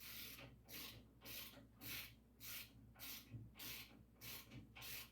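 Ratchet wrench worked in quick back-and-forth strokes, snugging bolts: about nine short, raspy ratcheting bursts at an even pace.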